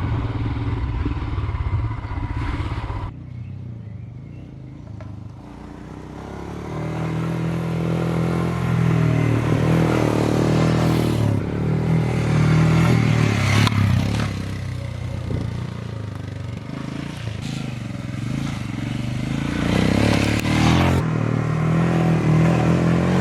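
Royal Enfield Himalayan's single-cylinder engine pulling along a rough off-road track. It eases off about three seconds in, then the revs climb and fall repeatedly with the throttle.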